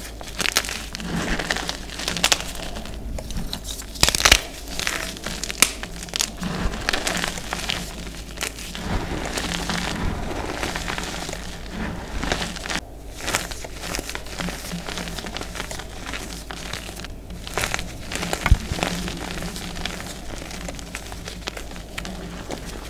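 Hands crushing and squeezing fresh gym chalk blocks into a heap of dyed reformed gym chalk powder: a dense, irregular dry crunching and crackling, with a few sharper snaps about four seconds in, again a second and a half later, and near the end.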